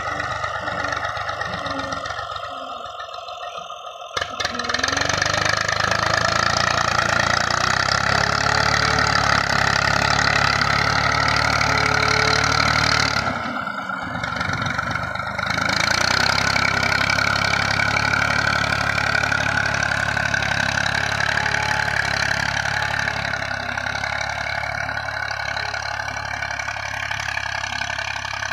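Massey Ferguson tractor's diesel engine running steadily under load while pulling a cultivator through the soil. It drops quieter briefly a couple of seconds in and again about halfway through.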